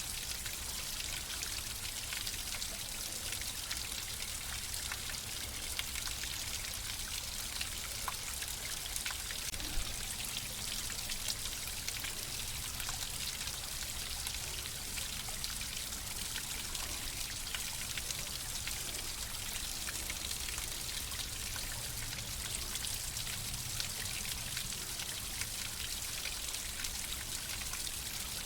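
Flowing water running steadily, a continuous trickling and splashing with many small droplet ticks over a low rumble.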